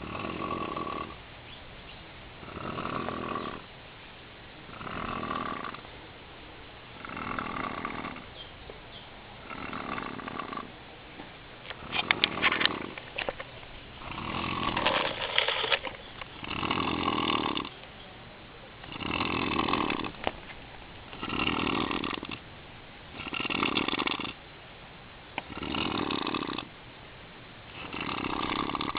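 A man snoring in a steady rhythm, one long rasping snore about every two seconds, loud enough to wake the people camping around him. About twelve seconds in, a few sharp clicks break in.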